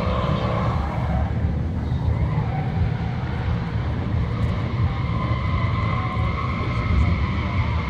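Drift cars on track: engine rumble with tyres squealing as they slide. The squeal eases about two seconds in and builds again after about five seconds.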